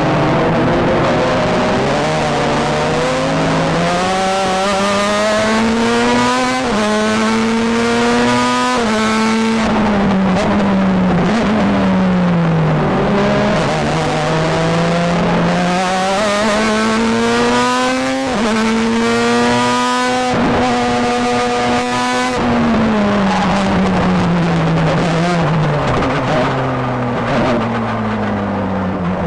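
Formula 1 car engine heard onboard, revving high and climbing through several quick upshifts, each a sharp break in pitch. Its pitch then falls away over a few seconds as the car brakes and downshifts. This happens twice, and the engine is pulling up through the gears again near the end.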